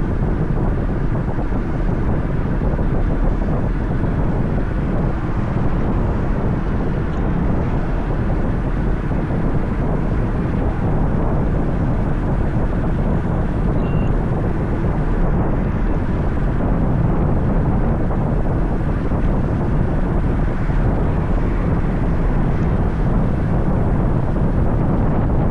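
Steady rushing wind buffeting the action camera's microphone while riding a road bike, a loud, even low-pitched rumble.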